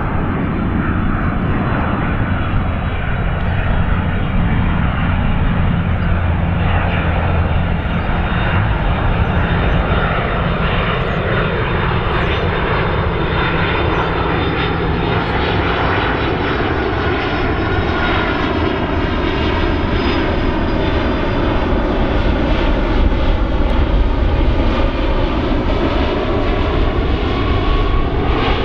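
Boeing 767-300ER's twin GE CF6-80C2B7F turbofans on landing approach, passing low overhead: a loud, steady jet rumble with a thin high fan whine. From about midway the tone swirls and sweeps as the aircraft passes over, growing a little louder near the end.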